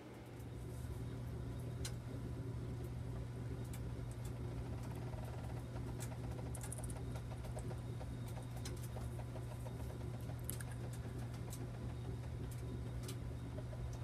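Dickinson Newport diesel cabin heater burning out of control, a runaway caused by too much fuel let into the burner before lighting: a steady low rumble with irregular crackles and ticks.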